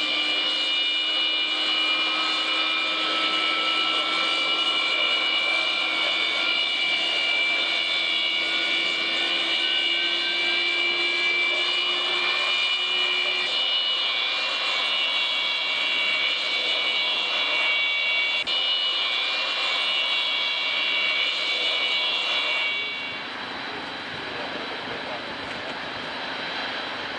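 Six Ivchenko-Progress D-18T turbofans of an Antonov An-225 Mriya running as the aircraft taxis, a steady high whine with one tone slowly rising. About 23 seconds in the sound drops to a quieter, duller, more distant engine noise.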